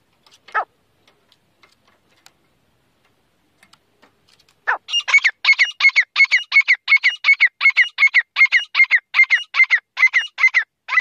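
Grey francolin calling: one short note about half a second in, then from about five seconds in a fast, even run of loud repeated call notes, about two or three a second.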